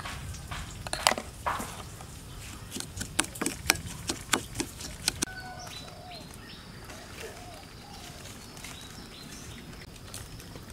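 A quick run of sharp clicks and taps for the first five seconds or so. After that, small birds chirp intermittently over a steady outdoor background.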